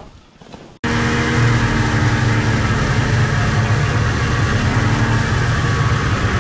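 Snowmobile engine running steadily while under way, heard from the driver's seat. It comes in suddenly about a second in, after a moment of faint wind noise.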